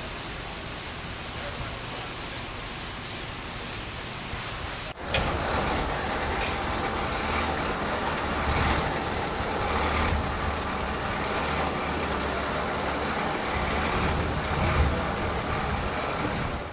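Steady running noise of a large vehicle's engine, such as a truck. About five seconds in it cuts to a louder, deeper rumble.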